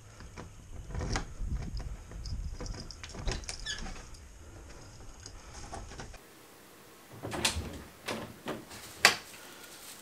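A key rattling in a front door lock and the door being unlocked and opened over a low rumble. Then a few footsteps and door knocks and clicks, with a sharp click about nine seconds in that is the loudest sound.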